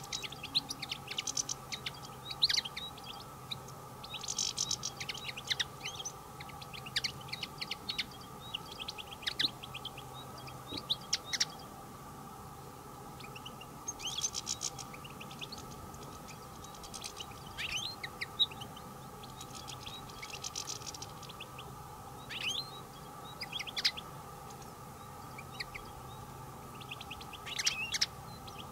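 A flock of European goldfinches twittering and calling, with short bursts of sharp, high chirps every second or so.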